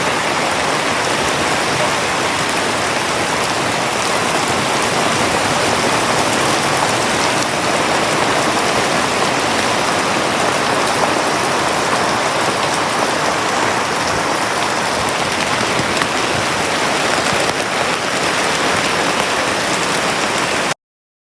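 Steady rain pattering on tent canvas, a dense, even patter of drops that cuts off abruptly near the end.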